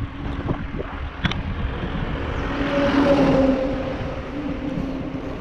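A motor vehicle passing on the road, growing louder to a peak about three seconds in and then fading, over steady road and wind noise. Two sharp clicks come in the first second and a half.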